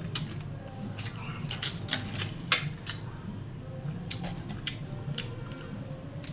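Chopsticks and a fork clicking and scraping against a stainless-steel tray as a papaya salad is tossed: irregular sharp clicks, thickest in the first few seconds, over a low steady hum.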